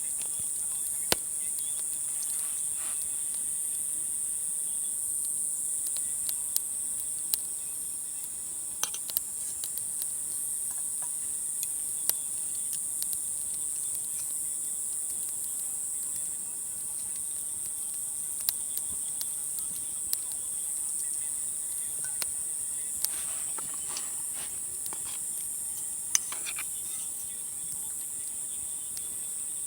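Insects chirring in one steady high-pitched band, with scattered sharp clicks.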